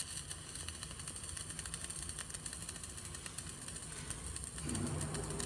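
CO2 MIG welding arc crackling steadily, with a dense run of fine clicks, as the final cap layer of a vertical-up weld is run on steel plate at 27 V and a wire-feed setting of 170 A.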